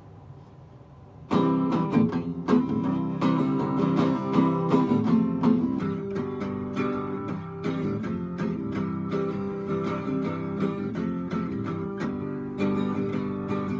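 Instrumental guitar music, plucked and strummed guitar with a steady beat, starting suddenly about a second in after a faint lead-in.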